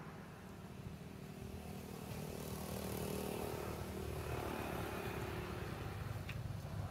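Engine of a passing motor vehicle: a low steady hum with a faint whine that grows louder about two seconds in.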